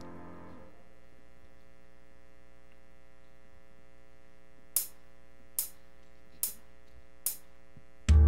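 Worship band's synth pad holding a steady chord between sung sections. About halfway through come four evenly spaced sharp ticks of a count-in, and the full band comes in loudly just before the end.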